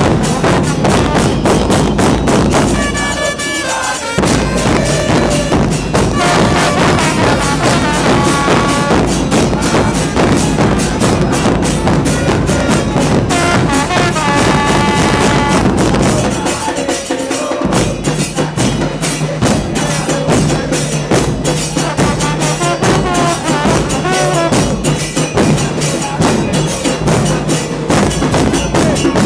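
A football supporters' murga band playing bass drums and percussion in a driving rhythm with fans singing along. The low drums drop out briefly twice.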